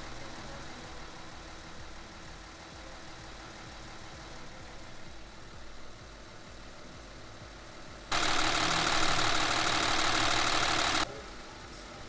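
Car air-conditioning service machine running with a steady mechanical hum while it works on the car's AC system. About eight seconds in, a much louder hiss starts, lasts about three seconds and cuts off suddenly.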